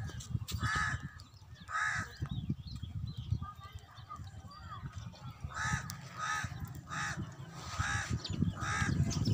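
A crow cawing repeatedly: three harsh caws about a second apart, a pause of a few seconds, then a run of five more. An uneven low rumble runs underneath.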